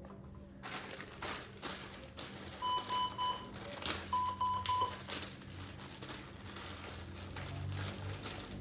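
A bedside medical monitor beeping in two quick runs of about five high beeps each, a second apart near the middle, over crinkling and rustling handling noises and a steady low hum.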